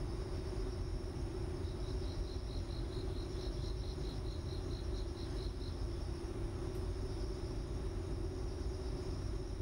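Steady low hum and hiss. Through the middle runs a string of short, high, evenly spaced chirps, about four a second, lasting about four seconds.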